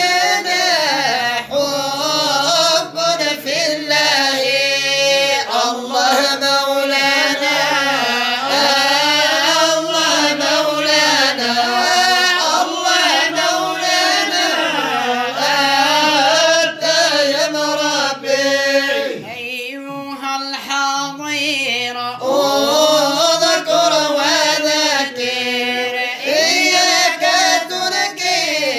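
Voice singing madih nabawi, Islamic praise poetry for the Prophet, in long drawn-out lines that glide up and down in pitch without clear words.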